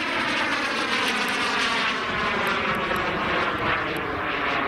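KingTech 140 gas-turbine engine of a CARF Ultra Flash RC sports jet in flight: a steady jet roar with a high whine that falls slightly in pitch.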